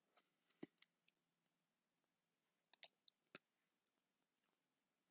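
Near silence broken by a handful of faint, scattered clicks of a computer mouse.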